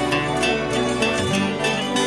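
Electric guitars playing an instrumental piece: plucked notes ringing over sustained tones.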